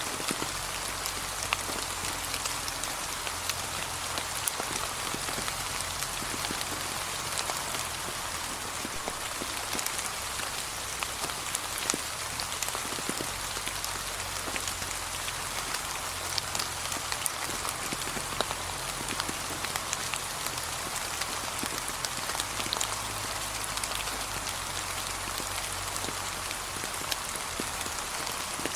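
Steady, gentle rain falling on fallen autumn leaves: an even hiss of rain with many separate drops ticking sharply throughout.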